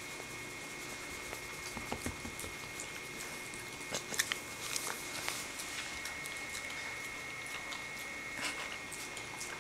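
A puppy mouthing and chewing during rough play, with scattered small clicks of teeth and soft scuffling, busiest about halfway through.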